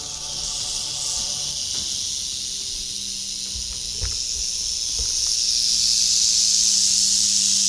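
Many rattlesnakes rattling at once at the den mouth, a dense high buzz that swells louder as they are approached. A low steady hum runs beneath it from about three seconds in.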